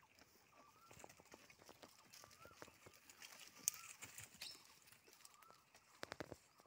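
Faint rustling and small clicks of goats moving through brush and tree branches, with one sharper click about halfway through and a short run of clicks near the end. A bird repeats a short rising-and-falling call about every second and a half.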